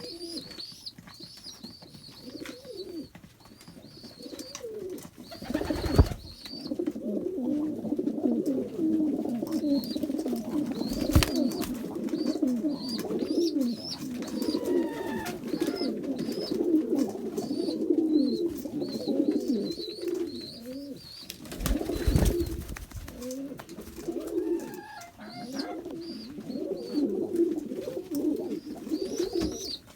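Many pigeons cooing, the coos overlapping without a break, with quick high chirps repeating above them. A few short, loud bursts of noise stand out about a fifth of the way in, near the middle and about two-thirds through.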